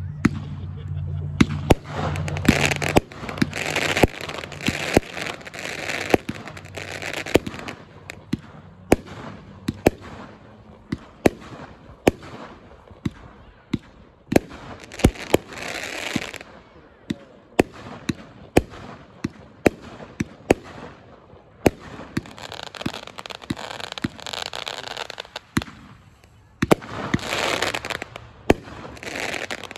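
Smoking Hot consumer fireworks cake firing shot after shot: sharp launch reports about once a second, with the breaks crackling in spells.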